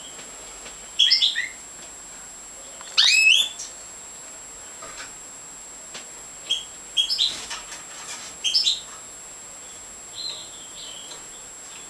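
Major goldfinch (Carduelis carduelis major) giving short, high chirping calls in small bursts. The loudest is a quick rising call about three seconds in, with several more bursts later.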